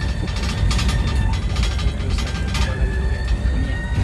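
Cabin noise inside a moving electric jeepney: quick clicking rattles of loose fittings over a low road rumble. A thin high whine comes in near the start, fades, and returns about halfway through.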